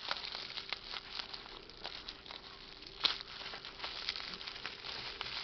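Bubble-wrap packaging crinkling and crackling in the hands as it is cut open with a knife, with scattered small clicks and one sharper crackle about three seconds in.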